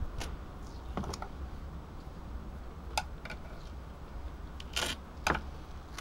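Duct tape and a plastic laminating sleeve being handled: a few short clicks and crinkles, then a brief rip of duct tape being torn about five seconds in.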